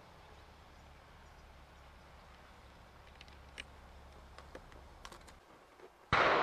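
Faint clicks and handling noises of a muzzle-loading rifle being loaded, over a low steady hum. About six seconds in, a sudden loud bang with a long fading tail.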